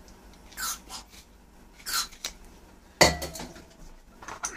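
Steel tools clinking and scraping against the pistol barrels and vise as the turn-off barrels are worked loose, a few scattered clinks with one sharp metallic knock about three seconds in.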